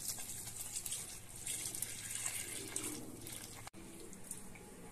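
Water pouring in a stream from a jug into a basin of flour while a hand mixes it. The sound cuts off abruptly about three and a half seconds in.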